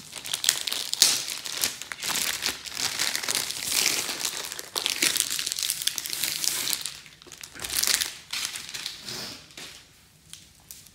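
Clear plastic film wrapping crinkling as it is pulled off a rolled canvas, in irregular rustling bursts that die down near the end.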